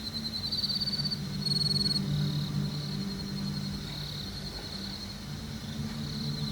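Insects chirping in rapid trills, over a low steady hum.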